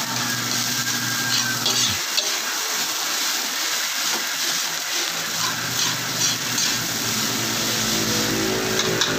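Fried rice sizzling in an aluminium wok while a metal spatula stirs and scrapes it in short irregular strokes. Under it runs a vehicle engine's hum, which cuts off about two seconds in and starts again about halfway through.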